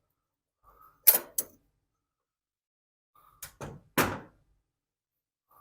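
Sharp metal knocks and clinks as a carburetor is worked off a Tecumseh small engine and handled: two strikes about a second in, the first the loudest, then three more in quick succession a little before the four-second mark.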